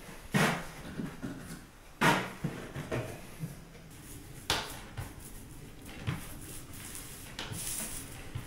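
Scattered sharp clunks and knocks, about six of them with quiet between, as steel bar clamps are set on a glued stack of wooden boards and the boards are handled.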